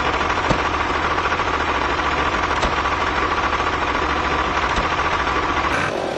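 Engine running steadily with a fast, even knocking beat, easing off near the end.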